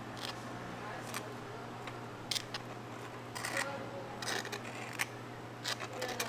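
Scattered clicks, taps and short scrapes of kitchen utensils being handled while waffles are made, over a steady low hum.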